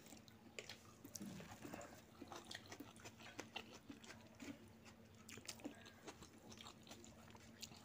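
Rice and raita being mixed and eaten by hand from a steel plate: a scatter of faint, soft wet clicks.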